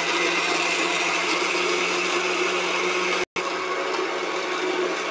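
Electric mixer grinder running at full speed, grinding tomatoes, green chillies, coriander and garlic into a chutney: a steady, loud whirring hum. It cuts out for an instant about three seconds in.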